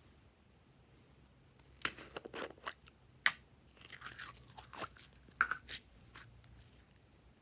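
Slime being squeezed and pressed by hand, giving off an irregular run of short sharp pops and crackles that start about two seconds in and die away near the end.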